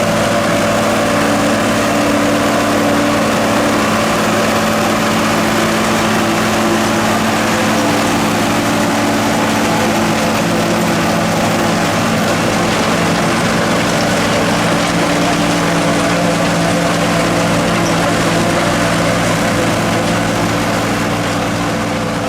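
John Deere 4440 tractor's six-cylinder diesel engine running steadily under load, driving a Sperry New Holland 782 forage harvester chopping corn, with a dense rushing noise from the chopper over the engine. The sound begins to fade near the end.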